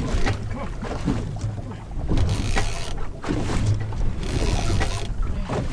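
Outboard motor idling with a steady low hum, under irregular bursts of water splashing at the surface where a hooked fish is thrashing beside the boat.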